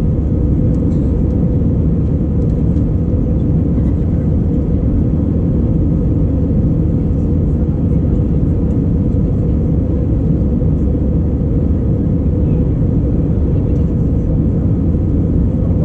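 Steady cabin noise of an Airbus A319-111 in flight, heard from a window seat over the wing: the deep, even roar of its CFM56 turbofan engines and the air rushing past the fuselage, with no change in pitch or level.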